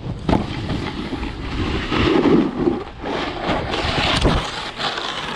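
Wind rushing over a helmet-mounted action camera's microphone as a snowboard slides and scrapes over packed snow, with a few sharp knocks and bumps along the way.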